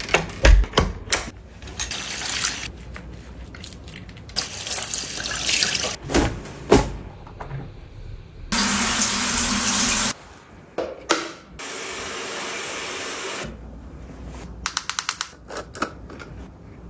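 Sink tap running in two short spells amid a string of separate clicks and knocks, with a quick run of about half a dozen ticks near the end.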